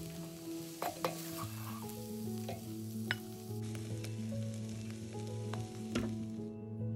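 Wooden spatula scraping and knocking against a steel wok as stir-fried moringa leaves with egg are scooped into a bowl, over the sizzle of the hot pan. There are several sharp knocks, the loudest about a second in and about six seconds in.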